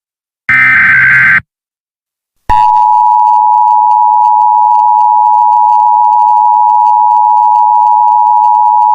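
Emergency Alert System header: a harsh digital data burst lasting about a second, then a second of silence, then the steady EAS attention tone starts about two and a half seconds in and holds without a break.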